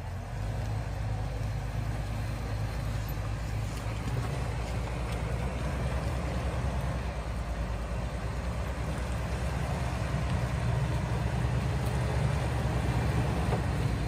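Jeep Wrangler LJ's 4.0-litre straight-six running steadily at low revs as the Jeep crawls a rocky trail obstacle with its lockers engaged, growing slowly louder toward the end.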